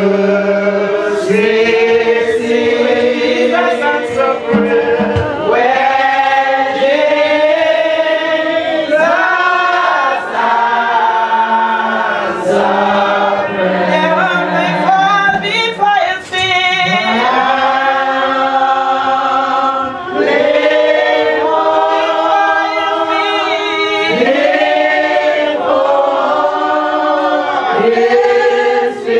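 A congregation singing a hymn together in long, held notes, with no clear instrumental backing.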